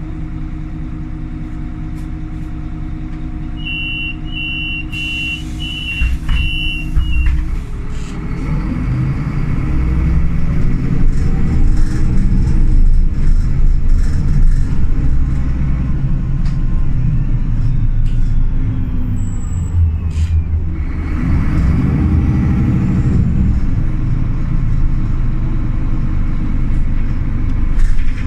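Solaris Urbino 18 III articulated bus heard from inside, idling, with a few high beeps and a hiss. It then pulls away: the engine rises in pitch and loudness as it accelerates, eases briefly after about twenty seconds as the Voith automatic gearbox shifts, and climbs again.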